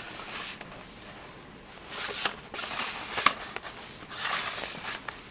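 Rustling and scuffling as plastic drainage pipe is handled and pushed into place in soil and foliage, with one sharp click a little over three seconds in.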